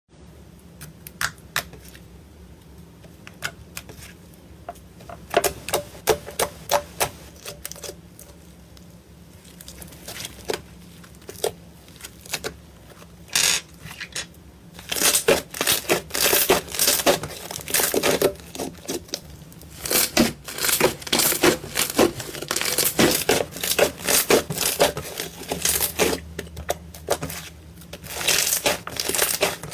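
A hand squeezing and poking slime, making sticky squishing sounds and sharp popping clicks, sparse at first and coming thick and fast from about halfway.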